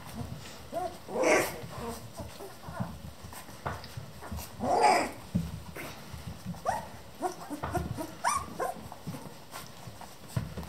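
A litter of 19-day-old Hungarian Vizsla puppies squeaking and whining in many short rising and falling calls, with two louder cries about a second in and about five seconds in. Soft low thumps and rustling run underneath.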